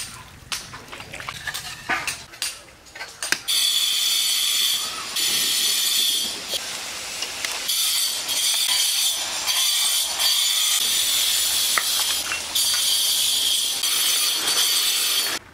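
Food in a hot pan of oil crackling, then a loud steady sizzling hiss from about three and a half seconds in. The hiss breaks off and resumes a few times and stops suddenly near the end.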